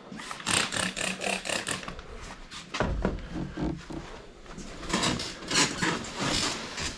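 Rubbing and wiping strokes over a plastic car trim piece, coming in irregular bursts, with a low knock partway through.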